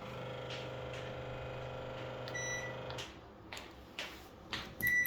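Washing machine running with a steady electric hum that starts abruptly and stops after about three seconds. Its control panel gives a short electronic beep near the end of the hum, then a louder beep near the end, with a few clicks in between.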